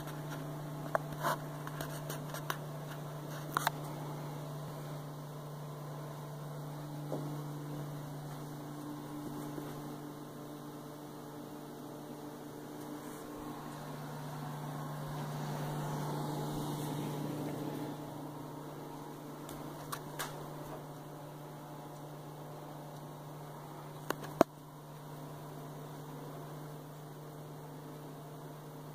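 Steady low hum of a running appliance or fan, with a few sharp clicks, the loudest a single click late on.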